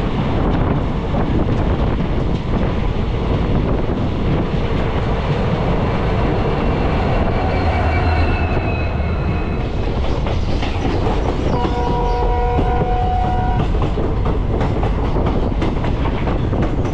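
A passenger train passing close by on the next track, its coaches rattling and rushing past with wheel clatter. About eight seconds in, the deep engine throb of its Indian Railways diesel locomotive goes by. Soon after, a train horn sounds one steady note for about two seconds.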